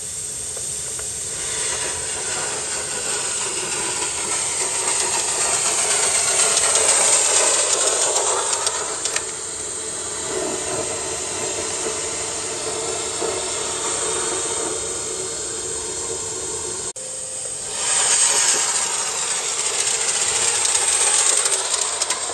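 Gauge 1 live steam model locomotive (Aster DB class 01) running with its train, a steady hiss of steam with the wagons rolling on the track, growing louder as it passes close about midway and again near the end.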